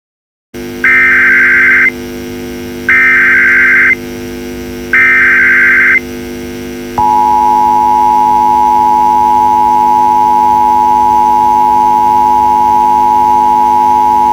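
Emergency Alert System tones announcing a Blue Alert: three one-second bursts of digital SAME header data about two seconds apart, then, about halfway in, the steady two-tone attention signal. A constant low hum runs underneath.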